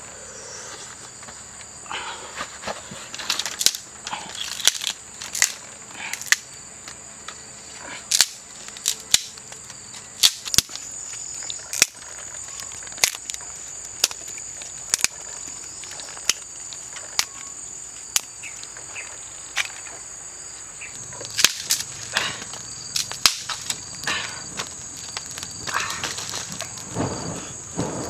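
Steady high-pitched insect drone from the surrounding vegetation, with many scattered sharp clicks and knocks. Near the end come the crackle and snap of a freshly lit wood fire.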